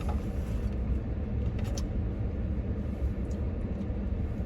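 Steady low rumble inside a vehicle cab, with a few light clicks.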